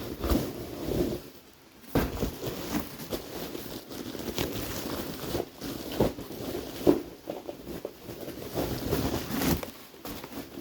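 Handling and opening a cardboard shipping package: irregular knocks, scrapes and rustling, with a few sharper bumps.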